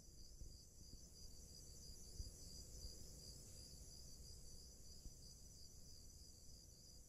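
Faint, high-pitched cricket chirring, steady and evenly pulsing, over near silence.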